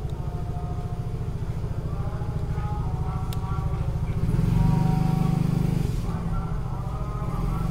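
An engine running with a steady low throbbing, swelling louder about four seconds in and then easing back.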